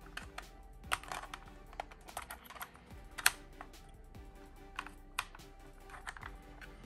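Plastic clicks and knocks of a 35 mm film canister being worked out of a half-frame film camera's cartridge chamber and handled, irregular, with the sharpest click about three seconds in. Soft background music underneath.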